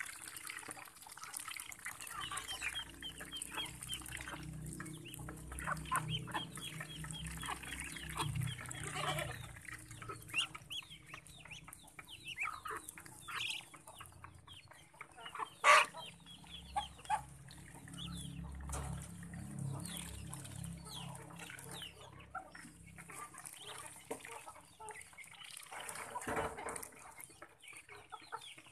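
Chickens clucking while Muscovy ducks dabble their bills in a basin of water and feed, making runs of quick wet clicks. There is one sharp, louder click about halfway through.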